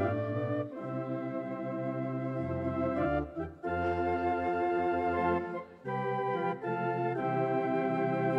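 Organ playing slow, sustained chords that change every second or two, with two short breaks between phrases.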